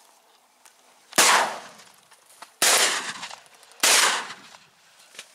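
Three shotgun shots, about a second and a half apart, each loud and sharp with a short tail trailing off after it.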